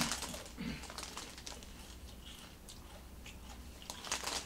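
Crunchy Ruffles All Dressed potato chips being chewed, a run of small irregular crunches. About four seconds in, a denser burst of crinkling as the chip bag is handled.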